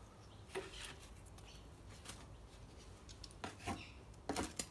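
Faint handling noises: a few short clicks and scrapes as small objects are picked up and moved about on a table, more of them near the end.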